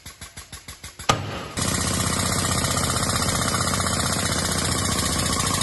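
Air-powered impact unit of a brake disc/rotor puller hammering against a rusted rotor to drive it off the hub. Light regular taps, about eight a second, then one sharp loud strike about a second in, then continuous rapid pounding.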